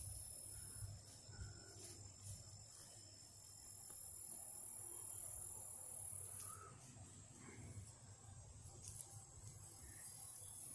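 A steady, high-pitched trill of insects, faint, over a low rumble.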